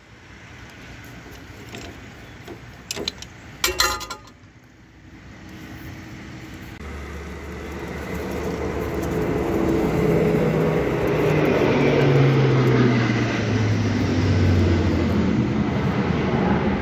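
A few sharp metal clinks about three to four seconds in. Then a road vehicle approaches and passes: it swells over several seconds, gets loud, and its engine note drops in pitch as it goes by.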